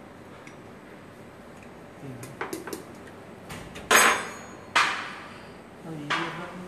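Plastic protein powder tub and scoop being handled: a few light clicks, then two sharp knocks about a second apart, and a softer knock near the end.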